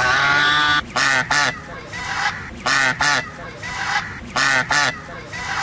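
Goose honking: one long call at the start, then three pairs of short, quick honks spaced roughly a second and a half apart.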